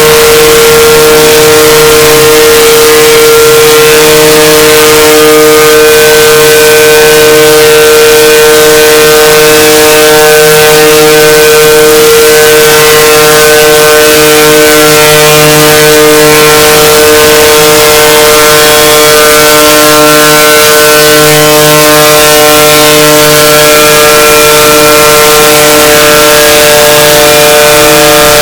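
The 'bruh' meme voice clip slowed down into a long, steady drone: one held tone with a slow wobble underneath, very loud.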